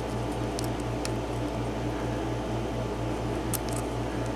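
A steady mechanical hum that pulses about three times a second, with a few faint ticks of the lock pick against the pin tumblers of a 7-pin mortise cylinder during single-pin picking.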